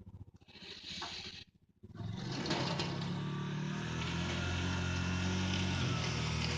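ATV engine running. After a brief drop-out about two seconds in, it comes back louder and runs steadily.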